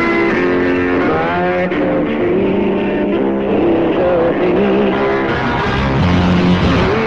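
Guitar-led rock music playing steadily as a radio show's break music, with held notes and some sliding, bending notes.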